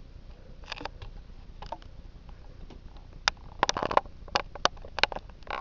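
A series of irregular light clicks and taps, sparse at first and coming more often in the second half, over a low steady background.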